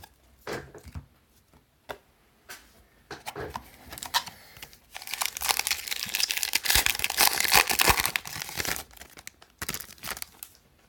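A trading card pack wrapper being torn open and crinkled, with a long stretch of dense, loud crackling from about five to nine seconds in, and scattered small clicks and rustles before and after.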